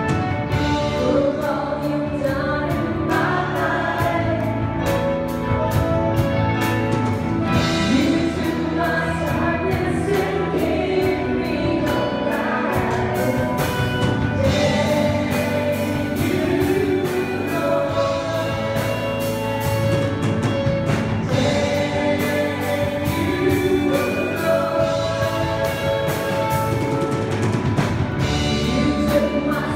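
Live church worship team singing a gospel song together, male and female voices over a band with drums, guitar and keyboard.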